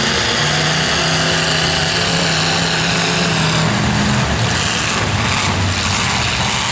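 Demolition derby pickup truck engines running in the arena: a steady held engine note that breaks off about three and a half seconds in, followed by a rougher mix of several engines.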